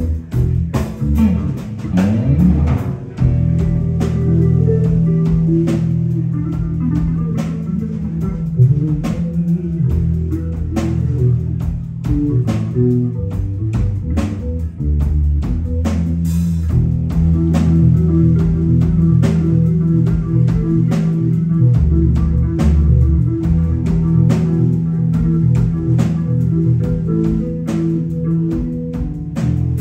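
Live band playing: electric bass guitar featured in the lead, with a drum kit and electric guitar accompanying it.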